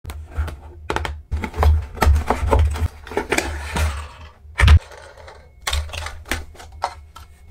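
Cardboard box and the small hard-plastic Henry desk vacuum being handled and unpacked: a run of quick clicks, taps and rustles, with a thump about four and a half seconds in.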